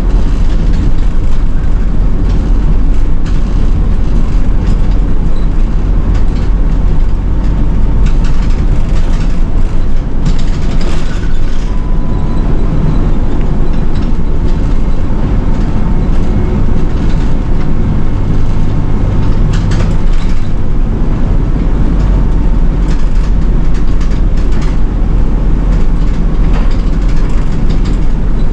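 City bus driving, heard from inside: a steady low engine and road rumble with scattered rattles and clicks from the cabin.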